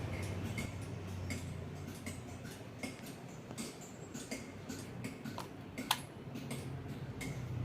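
Inagiku 56-inch industrial ceiling fan running: a steady low motor hum with a light, regular tick about every 0.7 seconds.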